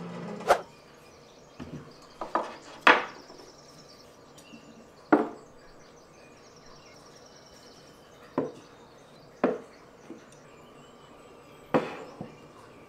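Small decor pieces being set down on a wooden console table: about eight separate sharp knocks of hard objects on the wooden top, a second or more apart.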